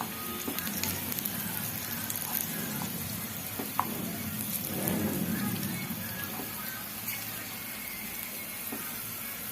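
Garlic cloves and dried figs frying in olive oil over a low flame: a light, steady sizzle, with one sharp click about four seconds in.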